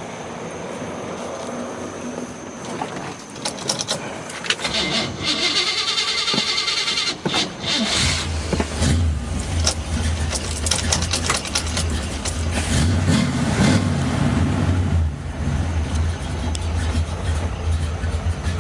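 1964 Chevrolet Corvette's 350 small-block V8, with dual four-barrel carburettors and headers, cranked over by the starter and catching about halfway through, then running with a steady deep rumble.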